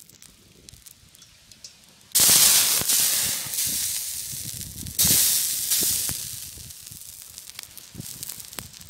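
Water hitting a hot iron griddle over a wood fire, flashing to steam with a loud hiss twice, about two seconds in and again about five seconds in, each hiss fading away over a couple of seconds. The wood fire crackles faintly underneath.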